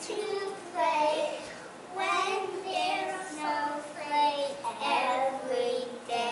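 A small group of preschool children singing a song together in short phrases.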